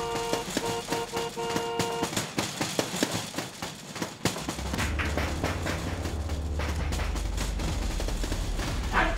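Action-film soundtrack: a held dramatic chord, then a rapid run of sharp percussive hits, then a low steady drone, with a swooping tone near the end.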